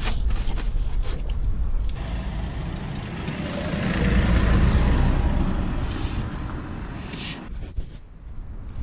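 Aerosol can of penetrating oil (a WD-40-type spray) hissing as it is sprayed onto a rusted spare-wheel carrier bracket: a longer spray in the middle, then two short squirts. A low rumble, like a passing vehicle, runs under it and drops away near the end.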